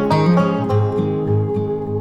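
Background music: upbeat plucked acoustic guitar and banjo with a steady bass beat.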